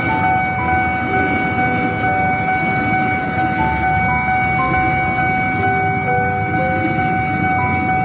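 Electric commuter train of Jakarta's KRL Commuter Line passing close over a level crossing: a steady rumble of wheels on the rails, with a high steady tone held throughout and shorter tones at shifting pitches coming and going.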